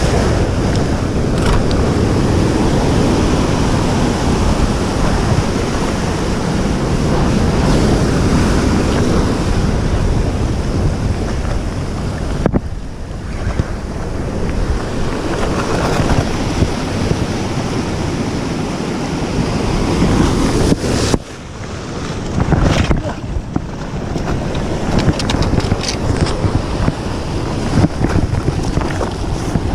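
Surf breaking and washing over coastal rocks, with heavy wind buffeting the microphone; the rush swells and eases, with a short lull about two-thirds of the way through.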